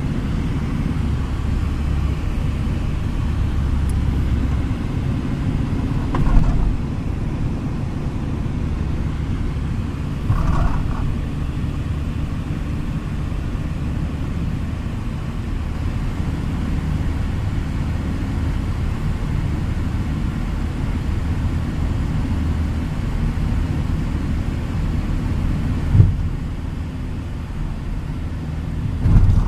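Steady low rumble of road and engine noise inside a moving car's cabin, broken by a few brief knocks, the sharpest about four seconds before the end.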